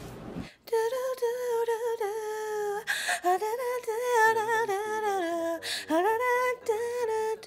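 A woman's high voice humming a wordless, wavering melody, starting about half a second in, with two short breaks.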